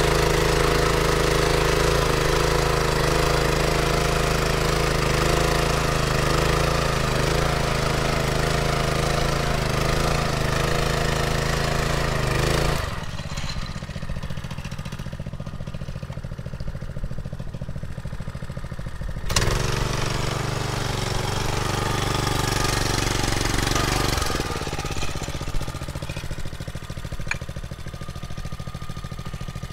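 Small engine of a two-wheeled walking tractor running steadily under load as it pulls a plough through hard, compacted soil. The engine sound drops off abruptly about a third of the way in, comes back loud a few seconds later, and drops again past the three-quarter mark.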